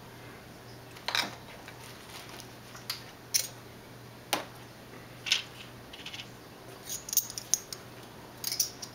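Handling noises of small gear: a series of separate sharp clicks and light metallic clinks, with quicker runs of clicks near the end.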